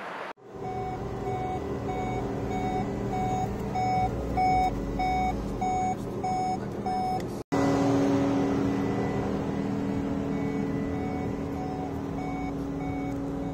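VW Golf 7 GTI's open-door warning beeper sounding with the ignition on and a door open: short, evenly spaced beeps, about two a second, over a steady hum. The beeping breaks off for a moment about seven seconds in and comes back fainter.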